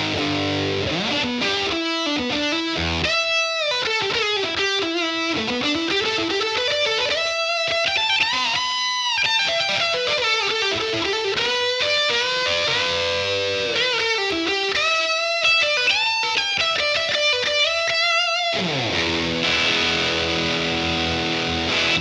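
Electric guitar played through a Satellite Amplifiers White JFET drive pedal with an overdriven tone: a single-note lead line full of string bends and slides. Near the end it slides down and settles on a held chord.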